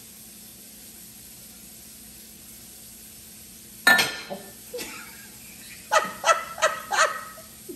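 A woman bursts out laughing about halfway through, over a steady low hiss, then gives four quick loud 'ha's near the end.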